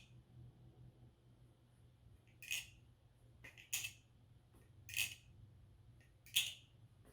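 BBFirefly aluminium balisong being flipped: its handles clack shut four times, sharp metallic clicks about one every second and a quarter.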